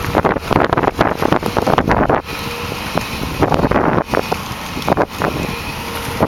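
Wind buffeting the microphone in irregular gusts over the steady running of an amphibious excavator's diesel engine and hydraulics as the boom lowers the bucket into the mud. A faint steady whine joins about two seconds in.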